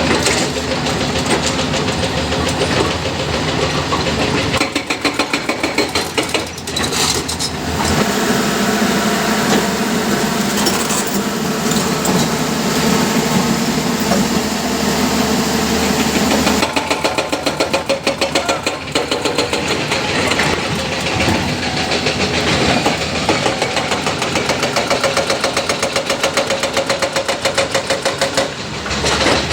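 Hyundai excavator's diesel engine running with a fast, even throb, its sound shifting abruptly a few times as the machine works.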